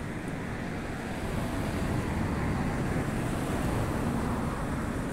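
Steady street traffic noise, an even low rumble of passing cars that swells a little in the middle.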